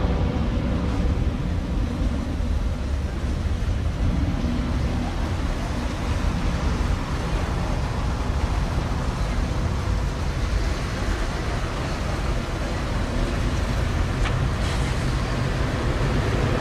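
Boeing 757 jet engines at takeoff thrust: a steady, loud rumble as the aircraft rolls down the runway, lifts off and climbs away.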